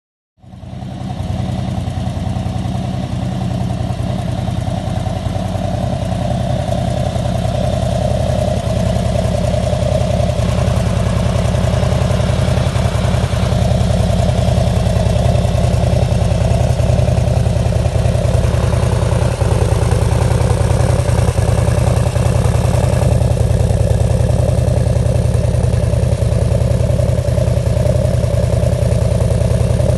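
Harley-Davidson Dyna V-twin idling steadily through a BSL 2-1 Clubman Race exhaust. The sound begins abruptly about half a second in.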